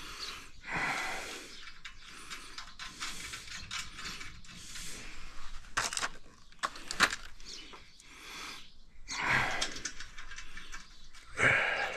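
Hand-tool and hardware noises from bolting a roof rack together: scattered light metal clicks and rattling, with two sharper clicks around the middle.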